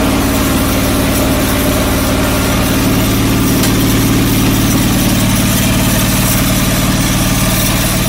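John Deere 445 lawn tractor's liquid-cooled Kawasaki V-twin engine idling steadily.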